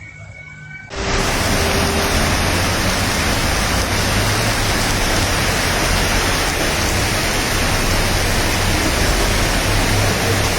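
Heavy rain pouring down: a loud, steady rushing hiss that starts suddenly about a second in.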